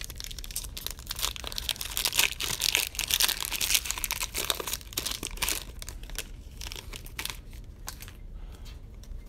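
Foil trading-card pack wrappers being torn and crinkled as the cards are handled. Dense crackling is strongest through the first half, then thins to occasional rustles and clicks.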